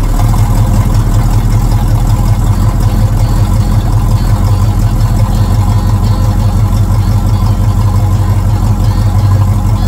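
A 1966 Ford Mustang's 289 V8 with Hooker headers idling, heard loud at the tailpipe as a steady, throbbing low exhaust rumble.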